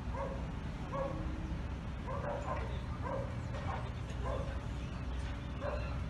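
A dog yapping in short, repeated calls, about ten over a few seconds, over a steady low rumble.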